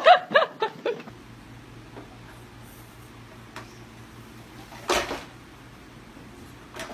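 A small child's crying trails off in a few short sobs in the first second. Then there is only room tone with a low steady hum, and one short noisy burst about five seconds in.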